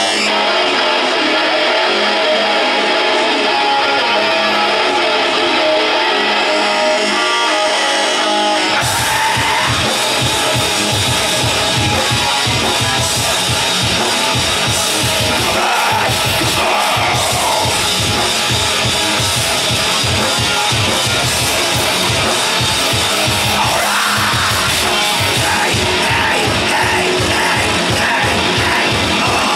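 Live heavy metal band playing. For about the first nine seconds the music is thinner, without bass or drums, then the full band comes in with fast kick drum, bass and distorted guitars.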